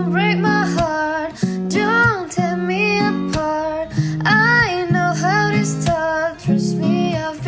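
Pop song playing: a high sung vocal line gliding between notes over strummed acoustic guitar.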